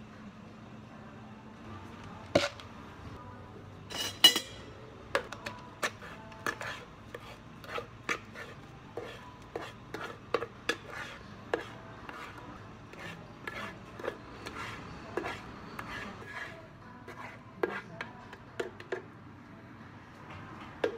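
A long spoon knocking and scraping against a plastic blender jar and cup while a thick blended chocolate drink is spooned out: irregular clicks and knocks, about one or two a second.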